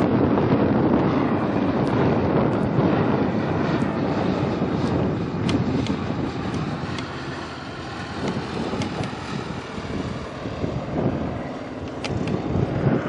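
Strong wind buffeting the microphone: a loud, fluctuating rumble that dips slightly in the middle and swells again near the end.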